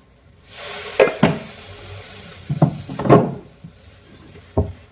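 A spoonful of loose tea leaves tipped into boiling water with a short hiss, and a spoon knocking against the pot several times while stirring.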